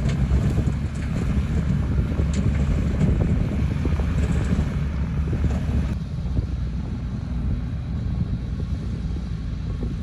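Loaded dump truck's diesel engine running as it drives on a dirt road: a steady, rough low rumble. The higher hiss drops away about six seconds in.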